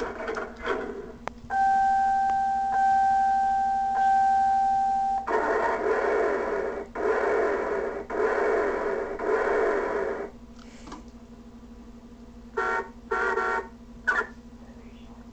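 Road Rippers Hummer H2 SUT toy playing electronic sound effects through its small, tinny speaker: a steady high beep held in three pulses for about four seconds, then about five seconds of a dense buzzy sound with a wavering pitch, and about two seconds from the end two short horn-like blasts.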